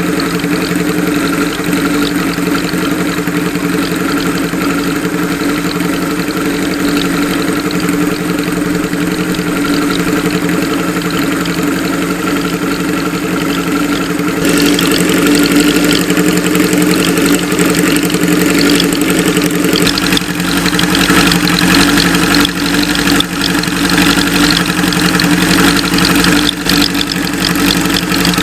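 Kawasaki 750RS (Z2) air-cooled inline-four idling steadily through a period Yoshimura exhaust. It gets louder and more raspy about halfway through, and again a few seconds later.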